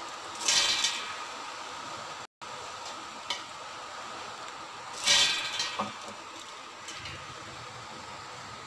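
Handfuls of soaked urad dal scooped out of their soaking water in a steel plate, with water splashing and dripping twice, a few seconds apart. A steady hum runs underneath.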